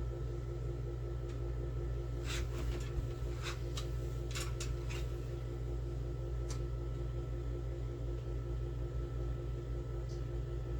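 Hands working a bleed syringe on an Avid hydraulic disc brake caliper, pushing fluid back through: a quick run of light clicks and taps about two to five seconds in, and one more a little later, over a steady low hum.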